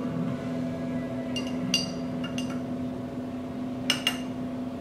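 Long metal bar spoon stirring sugar syrup in a glass mason jar, clinking lightly against the glass about six times, each clink with a brief ring. A steady low hum runs underneath.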